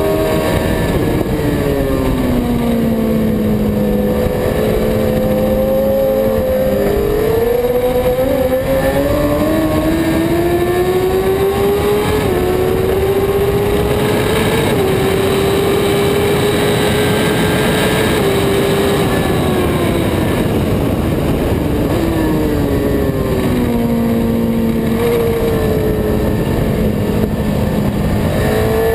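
Sport motorcycle engine heard from onboard at track speed, over steady wind rush. Its pitch falls in the first few seconds, climbs in steps through the middle, holds high for a few seconds, falls again after about 18 seconds and starts to rise near the end.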